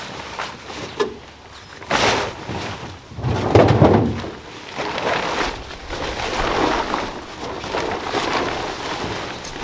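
Large plastic tarp rustling and crinkling as it is dragged off a boat hull, in several swells, loudest about four seconds in.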